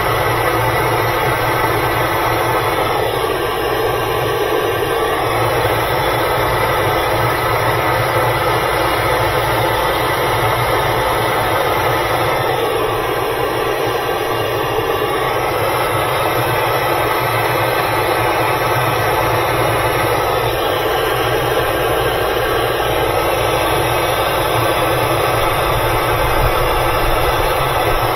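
Steady, loud rushing noise with a low hum from a heating tool melting 3M ScotchKote hot melt patch compound onto the plastic washer tub during the patch repair.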